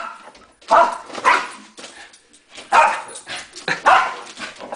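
Dog barking: about four short, loud barks at uneven intervals.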